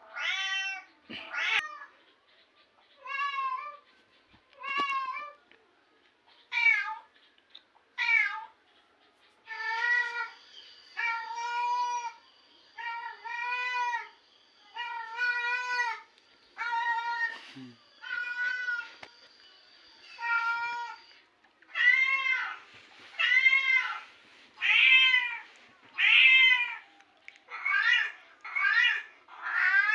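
Kittens meowing over and over, from a recording of crying kittens played loudly: short high cries, about one a second, growing louder in the last third.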